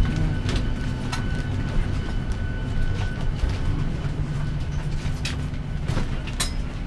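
Steady low cabin hum inside a parked Boeing 737-800, with scattered clicks and knocks as passengers deboard down the aisle. A thin high tone in the hum fades out about three seconds in.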